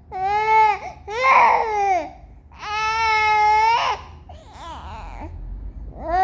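Baby making high-pitched fussy cries: four calls with short breaths between, the third held steadily for about a second and the last fainter.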